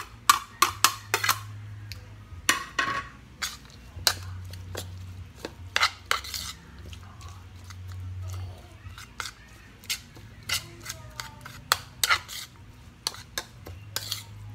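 A metal spoon scraping and tapping chopped vegetables off a plate into a bowl, a quick run of sharp clicks in the first few seconds, then the softer sound of canned tuna and vegetables being mixed by hand in the bowl, with scattered light clicks.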